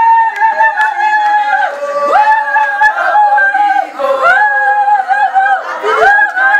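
Women's voices singing together in long, high held notes, sliding up onto each new pitch, with a few scattered hand claps.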